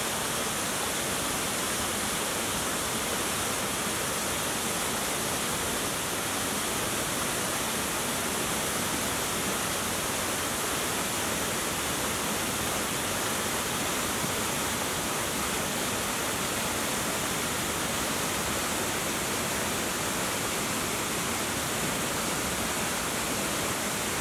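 Fast-flowing creek water rushing over rocks and spilling over a small weir: a steady, even rush of water.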